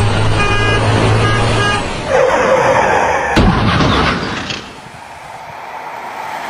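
A horn sounding over a low engine hum for about two seconds, then a rushing noise and a sudden crash about three and a half seconds in, with a rumble that fades away.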